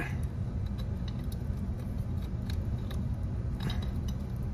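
Pliers tightening a nut on a solar porch lamp's metal gooseneck, giving scattered light metallic clicks and ticks over a steady low hum.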